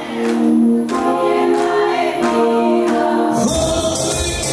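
Voices singing together in long held notes, with little bass beneath. About three and a half seconds in, the singing gives way to music with a low drum beat.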